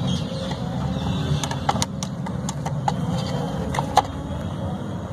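Sharp metallic clicks of pliers working the gear-oil dipstick on a Maruti 800's transmission, about nine of them, the loudest about four seconds in. A steady low engine hum runs underneath.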